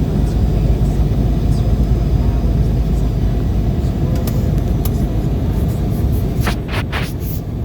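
Embraer 190 airliner's steady low rumble of engines and airflow, with a few short clicks near the end.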